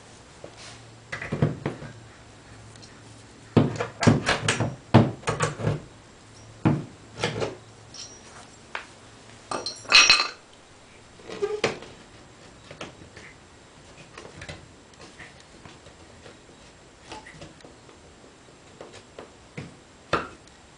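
Hammer tapping on wood, the cedar frame and its dowel pegs on the loft board, in irregular groups of sharp knocks. The knocks are loudest in the first six seconds and again about ten seconds in, then thin out to scattered lighter taps and wood clatter as the frame is worked loose from the pegs.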